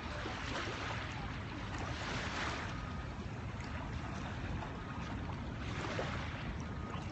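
Ocean surf washing onto the beach: a steady hiss of waves that swells twice. Wind rumbles on the phone's microphone throughout.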